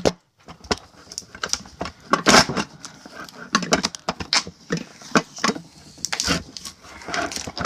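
Plastic protective covering being pulled off a metal elevator button fixture: irregular crinkling and rustling of plastic, with small clicks and knocks as the fixture is handled.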